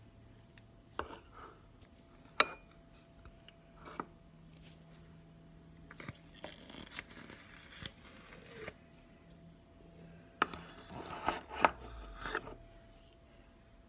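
Light clicks, knocks and scrapes of kitchen handling around a red plastic measuring cup of peanut butter, spaced a second or two apart, with a busier run of scraping and knocking about ten seconds in.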